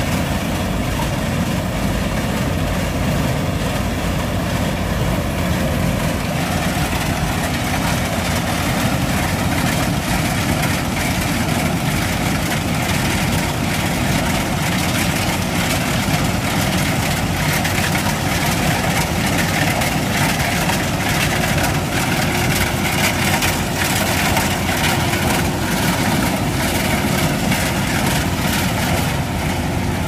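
Kubota DC-105X rice combine harvester's diesel engine running steadily as the tracked machine drives slowly along.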